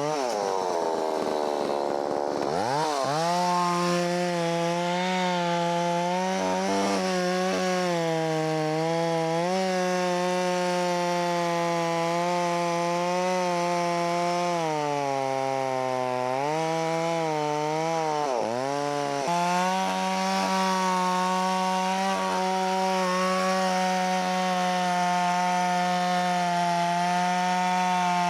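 Holzfforma 660 clone chainsaw, a big two-stroke, running at high revs while cutting wood. Its pitch drops and climbs back in the first couple of seconds, sags again around the middle and briefly a few seconds later, and otherwise holds steady.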